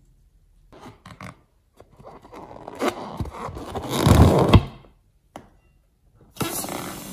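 A rubber balloon handled close to the microphone, its rubber rubbing and scraping. The sound builds to its loudest about four seconds in. Near the end, small scissors snip at the balloon's neck and a steady rushing noise begins.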